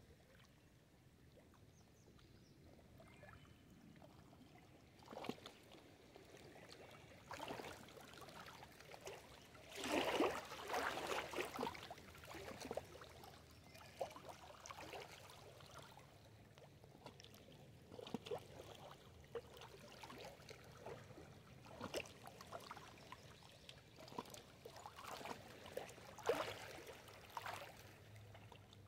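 Small lake waves lapping and splashing against rocks and branches at the water's edge, in irregular bursts that are loudest about ten seconds in.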